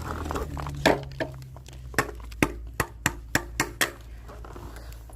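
A quick series of sharp clicks and knocks, about eight over three seconds: bowls being picked up and set down, knocking together.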